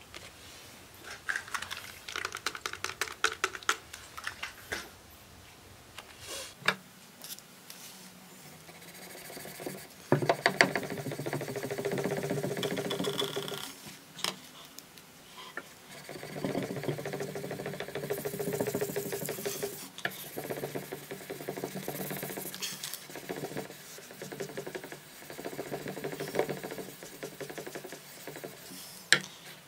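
3000-grit sandpaper backed by a flat metal block, rubbed back and forth along a steel knife blade in runs of quick rasping strokes with short pauses between.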